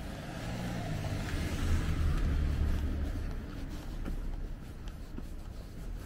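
A small car driving past on a narrow street. Its engine and tyres grow louder to a peak about two seconds in and then fade, with the engine note falling as it goes by.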